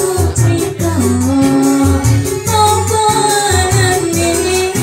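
Live band music with a steady beat and a woman singing through the PA system.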